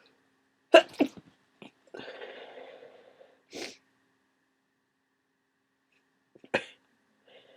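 A person with a cold sneezing: two sharp sneezes in quick succession about a second in, followed by about a second of noisy breathing. Another short, sharp burst comes near the end.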